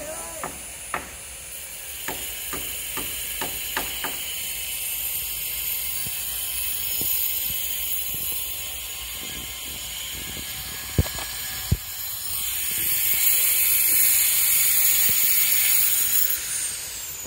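Sharp knocks of hammer strikes on steel roof battens: a quick run of about eight in the first four seconds, then two louder ones about two-thirds of the way through. Under them runs a steady high hiss that grows louder near the end.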